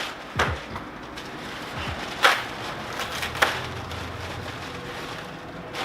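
A few separate sharp clicks and knocks of small parts being handled and set down, the loudest a little past two seconds in, with a short low thud near the start.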